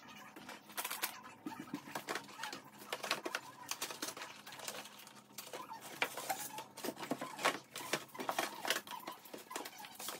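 Packages and jars being handled and set on pantry shelves: a run of irregular taps, clicks and knocks with light rustling.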